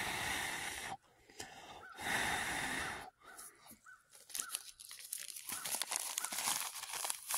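Two long breathy rushes of air, each about a second long, blown onto a smouldering tinder bundle to bring a char-cloth ember to flame, then a run of fine dry crackling and crinkling from the tinder.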